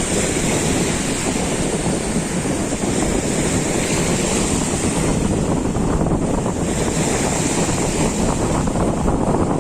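Sea surf washing onto a pebble shore in a steady rush of waves, with wind buffeting the microphone and adding a low rumble.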